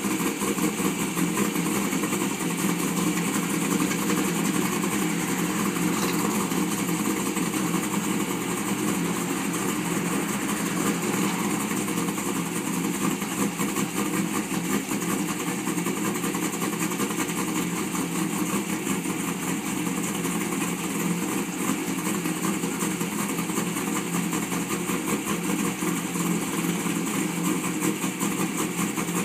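A C5 Chevrolet Corvette's V8 idling steadily.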